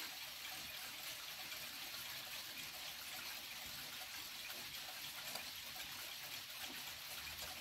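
Steady, even hiss with no clear ticking or chime in it.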